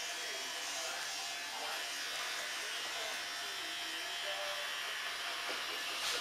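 Corded electric hair clippers running steadily, cutting short hair over a comb at the nape.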